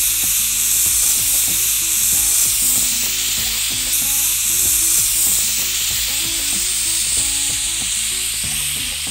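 Pressure cooker whistle going off: a loud, steady hiss of steam forced out past the whistle weight, lasting about nine seconds and cutting off sharply near the end. It is the sign that the cooker has come up to full pressure.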